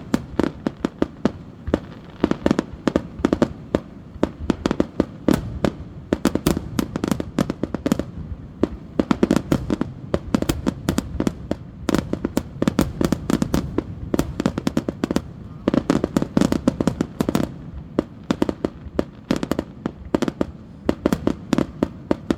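Fireworks going off in rapid, irregular volleys of sharp cracks and bangs over a low rumble, coming in dense clusters throughout.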